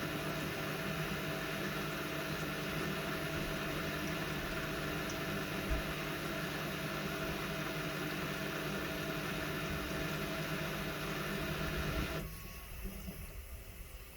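Front-loading washing machines in their 1400 rpm final spin, running at steady speed with a droning hum and a motor whine. About twelve seconds in the sound drops abruptly to a much quieter hum.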